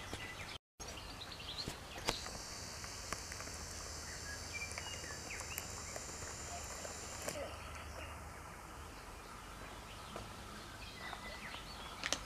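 Faint outdoor ambience with scattered small clicks and light rustles. A steady high-pitched hiss runs from about two seconds in until about seven seconds in.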